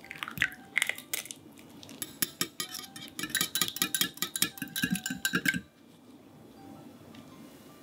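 An egg broken open over a small glass bowl, then a wire whisk beating it: a quick run of clinks as the wires strike the glass, which stops suddenly.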